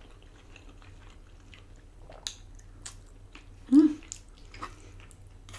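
Close-up mouth sounds of a person chewing food, with scattered small wet clicks and smacks. A short, louder throaty sound comes about two-thirds of the way through.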